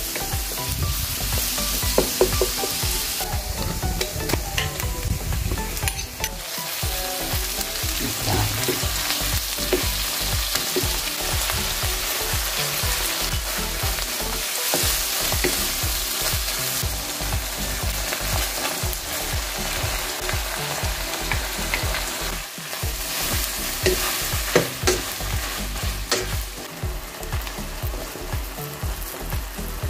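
Minced garlic and onion, then ground meat, sizzling in hot oil in a wok while a wooden spatula stirs them, scraping and clicking against the pan.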